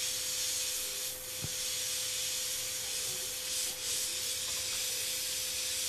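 Oxygen–MAPP gas hand torch burning with a steady hiss.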